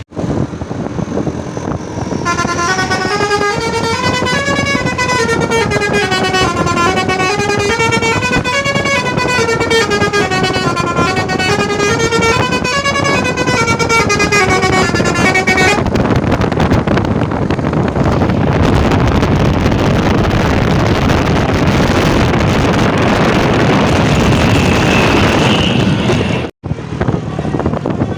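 Basuri telolet multi-tone horn on a Pangeran bus playing a tune of short stepped notes that climb and fall again and again for about fourteen seconds. After that comes a loud steady rush of vehicle noise without notes, broken by a short cutout near the end.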